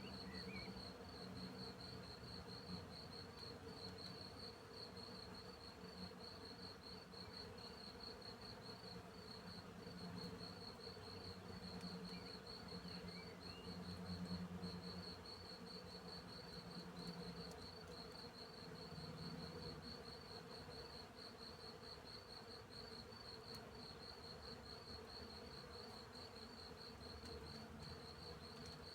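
Crickets chirping steadily in an even, rapid pulse. A bee or bumblebee buzzes in a low drone that swells louder as it flies close to the microphone around the middle.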